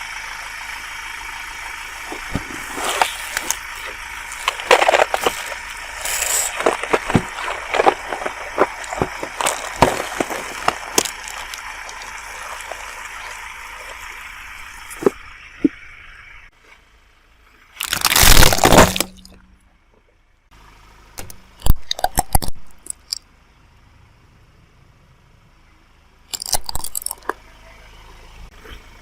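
Objects cracking and crunching as a car tyre crushes them: a long run of dense crackling with many sharp snaps, then a loud burst of cracking and a few separate sharp cracks.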